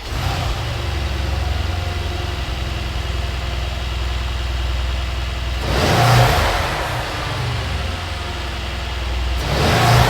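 A Mercedes-AMG C63S's 4.0-litre twin-turbo V8, fitted with a carbon fibre aftermarket air intake, idles steadily. It is revved briefly twice, about six seconds in and again near the end.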